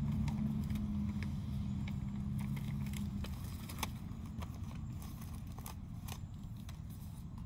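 A low, steady engine hum from a passing motor vehicle, fading out about three seconds in, with scattered light clicks and crinkles of plastic toy packaging being handled.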